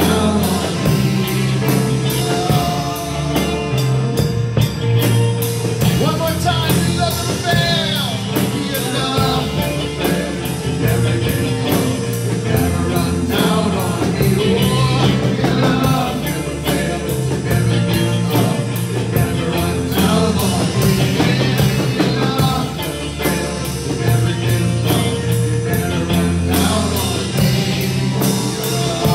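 Live worship band playing a rock-style song: a drum kit keeps a steady beat under keyboard and bass, with a singer's voice over the band.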